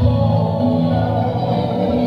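Music played through a big-bass sound system during a sound check: held melodic notes over a heavy, continuous bass.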